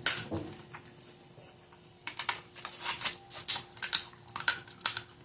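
Close-up eating sounds of crawfish and shrimp. From about two seconds in there is a run of sharp, irregular clicks and cracks, several a second, from shells being broken and peeled and from chewing.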